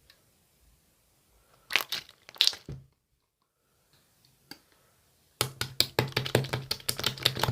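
Clear slime being pressed and worked by hand, crackling with sharp pops and clicks of trapped air: a short burst about two seconds in, then a fast run of clicks from about five and a half seconds on.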